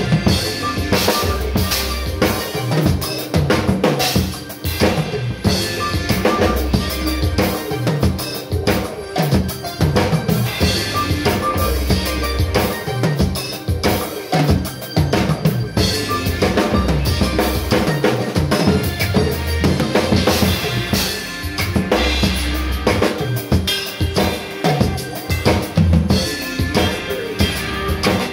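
Acoustic drum kit played with sticks: kick drum, snare, toms and cymbals in a steady groove with fills. A recorded song with a bass line plays along underneath.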